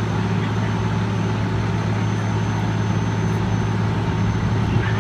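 Fire engine's engine running steadily, a low, even drone.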